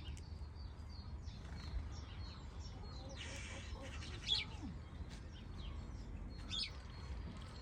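Scattered short, high bird chirps, a few seconds apart, over a low background rumble, with a brief rustling noise about three seconds in.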